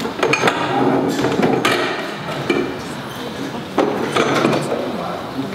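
Blue metal-legged chairs being carried and set down on a hard floor: several sharp knocks, the first ones near the start and others later on, amid people talking and piano playing.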